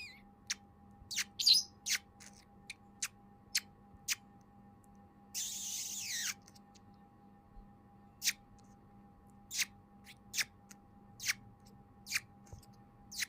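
Lovebird giving short, sharp, high chirps every second or so, with one longer harsh screech about five seconds in. A faint steady hum runs underneath.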